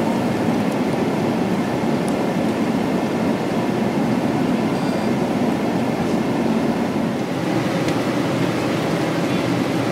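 Steady cabin noise inside a jet airliner: an even, unbroken rush of engine and air noise with no distinct events.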